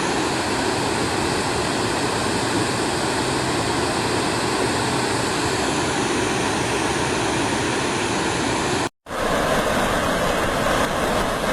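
Waterfall rushing: a steady noise of falling water that drops out for a split second about nine seconds in, then carries on.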